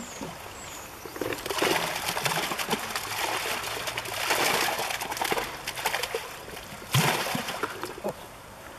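Water splashing and sloshing as a keepnet full of fish is lowered and emptied into a canal, the released fish splashing at the surface. The splashing comes in surges, the sharpest about seven seconds in, and dies down near the end.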